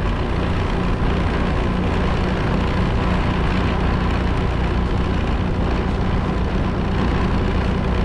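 Motorcycle running steadily at cruising speed, its low engine hum under loud, even wind and road noise from riding.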